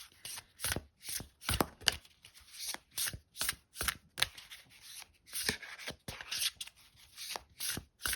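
A deck of oracle cards being shuffled by hand: a steady run of short card strokes, about two a second.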